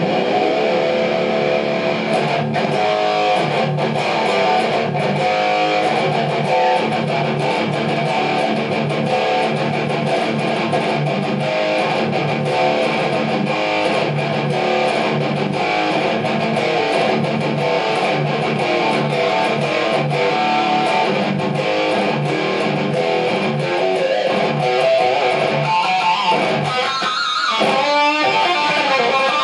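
Tagima electric guitar played through a Blackstar HT100 valve amp head into a Laney 4x12 cabinet with Celestion speakers: fast, continuous picked lead lines, with wavering, bent high notes near the end.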